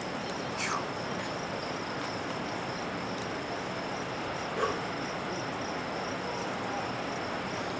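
Steady outdoor background hiss with a thin, continuous high insect drone, broken twice by a short falling cry, about half a second in and again about four and a half seconds in.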